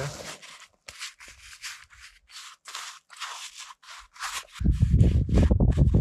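Paintbrush scraping over the painting in short, quick strokes, about three a second. Near the end a loud low rumble sets in and covers them.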